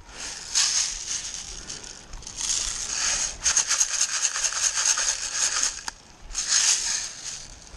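Close crunching and rustling in three stretches, the longest from about two to six seconds in, with no steady tone, as a player moves over dry ground and brush.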